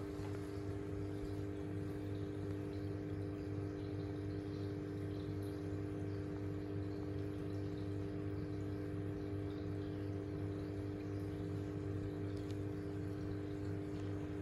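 Submersible aquarium filter pump humming steadily, with water bubbling in the tank.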